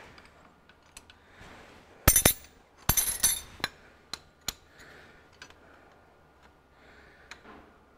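Small steel spanner clinking against the injector fittings of a Ferguson 23C diesel engine as a 7/16 nut is undone. A cluster of sharp metallic clinks comes about two to three and a half seconds in, followed by a few lighter ticks.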